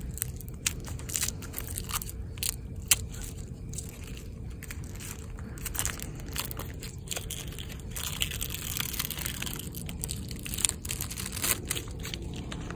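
Crackling and crinkling of a primary lithium AA cell's rolled electrode sheets (lithium foil, iron disulfide cathode and separator) as gloved hands unroll them: many irregular sharp clicks, densest about eight to ten seconds in.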